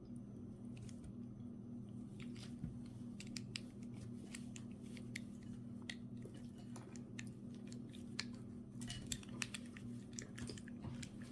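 Faint, scattered small clicks of an ignition lock cylinder being handled and tried with its key while its tumblers are fitted, over a steady low hum; the clicks come a little closer together about nine seconds in.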